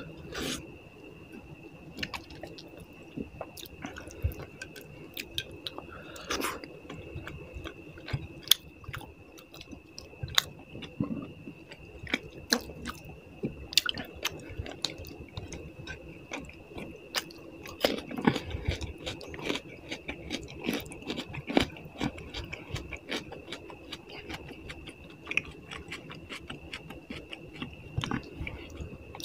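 Close-up chewing and eating of fish curry with rice: wet mouth sounds with many sharp, uneven clicks. A faint steady high whine sits underneath.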